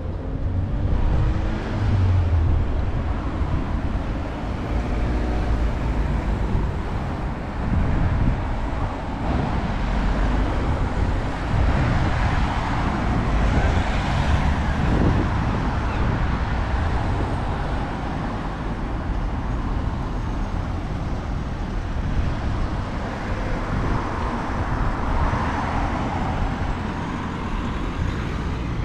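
Road traffic on a town street: cars driving past with a steady tyre and engine noise. One car passes close about halfway through.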